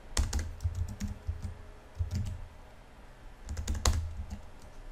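Computer keyboard keys clacking as a word is typed, in several short runs of keystrokes with brief pauses between them.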